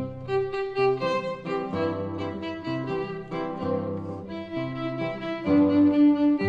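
Classical music for bowed strings: a violin melody over low held cello or bass notes that change every second or so.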